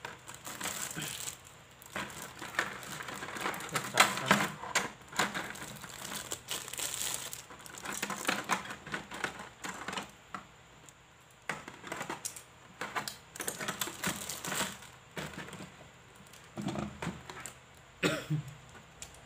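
Clear plastic packaging bags crinkling and rustling as they are handled and opened, with many irregular crackles and clicks.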